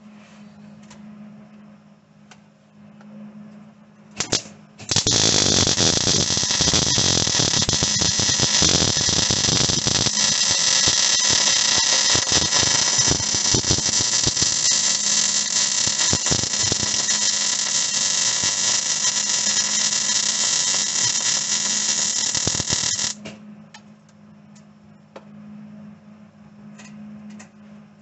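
Wire-feed welder arc crackling as a bead is run on the sheet-steel floor pan: a short blip about four seconds in, then one continuous run of about eighteen seconds that cuts off suddenly.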